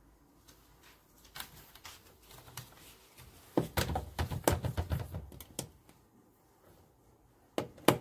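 Light knocks and clicks from handling an empty top-loading washing machine's plastic lid and tub, a dense run of knocks with dull thuds from about three and a half to five and a half seconds in, then two sharp clicks near the end.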